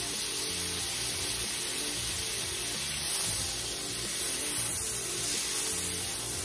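Butter and oil sizzling with a steady hiss in a very hot cast iron skillet as the butter is pushed around with a fork, over background music.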